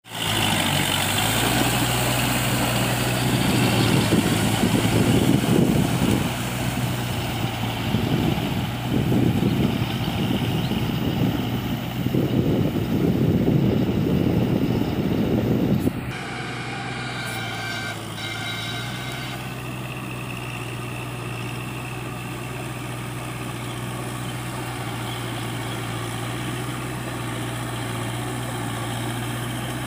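Kubota MU4501 tractor's four-cylinder diesel engine running steadily as the tractor works through deep mud with a rotary tiller. Over the first half a loud, rough noise lies over the engine, then drops away abruptly about halfway through, leaving the even engine hum.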